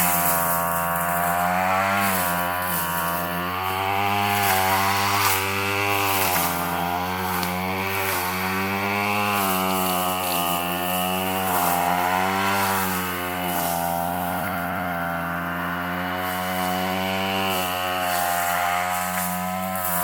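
Gas weed eater's two-stroke engine running under load with a brush-cutting blade, its pitch dipping and rising again and again as the blade bites into heavy brush.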